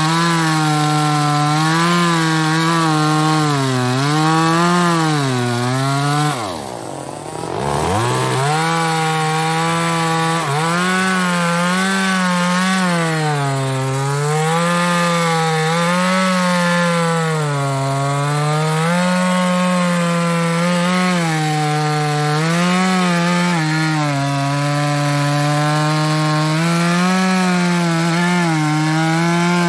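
Small New West 628 two-stroke chainsaw with a 26-inch bar cutting wood, its engine pitch wavering up and down as the load on the chain changes. About six seconds in the throttle drops off and the engine falls briefly toward idle, then revs back up and carries on cutting.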